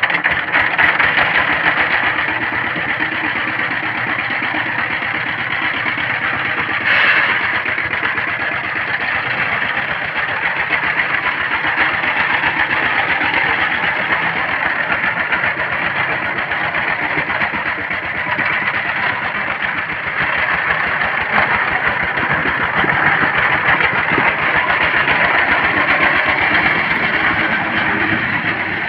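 A two-wheel power tiller's single-cylinder diesel engine running with a fast, even chugging while it pulls a trolley across a field.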